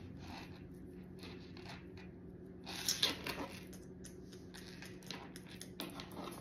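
Tarot cards being slid and turned over on a wooden table: soft brushing and light taps of card stock, loudest a little under three seconds in, over a low steady hum.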